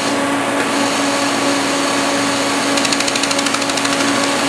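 LaserStar 150-watt pulsed laser welder firing at 13 pulses a second while welding a bead, heard as rapid, even ticking that stands out for about a second past the middle. It sits over the machine's steady hum.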